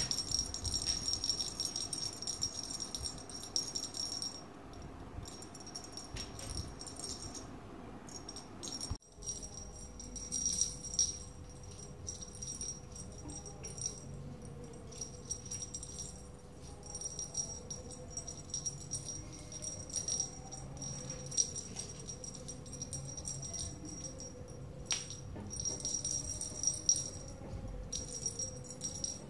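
A small jingle bell on a cat wand toy jingling in quick, irregular shakes with short pauses as the wand is waved and a kitten bats at it.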